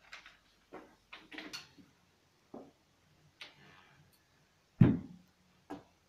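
Sheets of paper rustling as they are handled on a table, then a few light knocks, and one louder thump near the end as a glass bottle is set down on the table.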